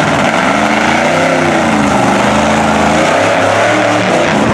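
Supercharged LS V8 (LQ4 with an LSA blower) of a big tractor-tired mud Jeep, revving up and down in long swells.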